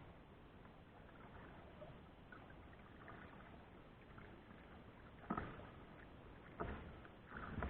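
Kayak paddling: faint water sounds, then three sudden splashes or knocks of the paddle in the second half.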